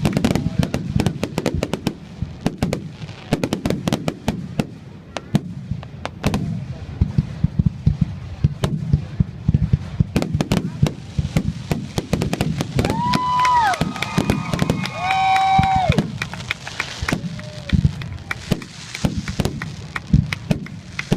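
Fireworks going off in quick succession: a dense run of sharp bangs and crackles. Around 13 to 16 seconds in, a few held whistling tones sound among the bangs.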